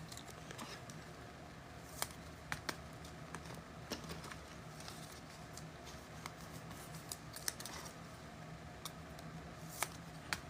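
Faint, scattered clicks and snaps of trading cards being handled and flipped through, over a low steady hum.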